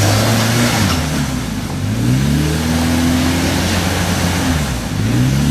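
Off-road 4x4's engine revving up and easing off twice as it crawls over the trail.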